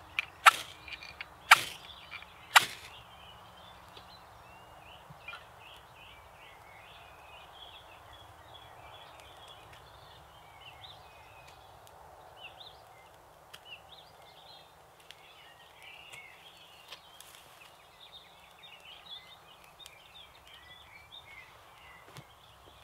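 Fire steel struck four times in quick succession in the first three seconds, short sharp rasping scrapes that throw sparks onto a dry-grass tinder bundle to light a fire. Birds sing quietly in the background after that.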